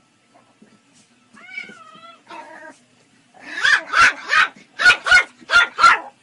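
A cat gives a wavering, drawn-out meow, then a shorter one. From about three and a half seconds in comes a quick run of about seven short, loud yaps from a puppy.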